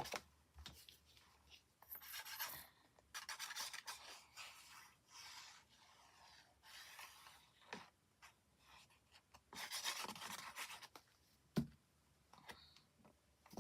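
Hands rubbing and brushing over paper and card in short, scratchy strokes, with a couple of light taps.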